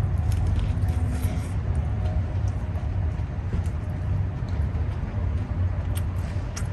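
Steady low outdoor rumble of urban background noise, with a few faint clicks near the end.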